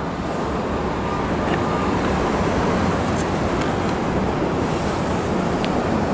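Steady street traffic noise, swelling slightly over the first couple of seconds and then holding.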